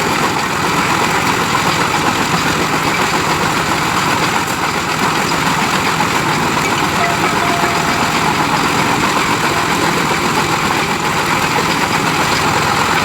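An engine running steadily and loudly, with no change in speed.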